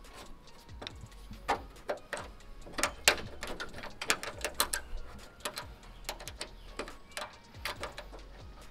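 Screwdriver working small screws out of a hood pin's metal mounting plate on a car hood: a run of irregular metal clicks and ticks, the sharpest about three seconds in.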